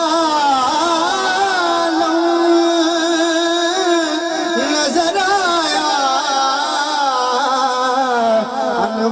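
Qawwali: a male voice sings long, wavering, ornamented lines over a steady held note from the accompaniment.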